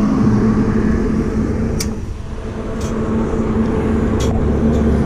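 A steady engine hum runs throughout. Over it come a few sharp metallic clicks, about two, three and four seconds in, from hands working on the motorcycle's loose exhaust mounting.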